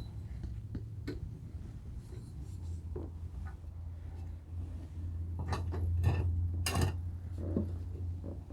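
Scattered light clicks and knocks of table saw parts and hardware being handled and fitted, about six over several seconds, the loudest about six and seven seconds in, over a steady low hum.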